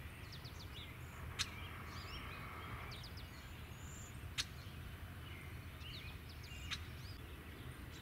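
Small songbirds chirping and calling in short, varied notes, with three sharp clicks spread through, over a steady low rumble.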